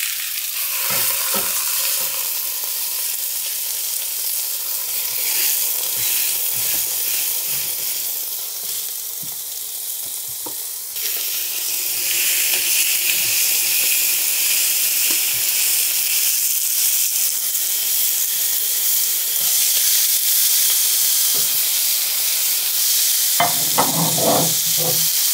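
Oyster mushrooms sizzling and searing in hot oil in a cast iron pan, with small pops and crackles. About eleven seconds in the sizzle grows louder as the mushrooms are pressed flat against the pan.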